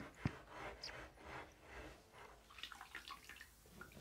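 Hand swishing and splashing through bath water in a bathtub, soft and irregular, with a short sharp knock about a quarter second in.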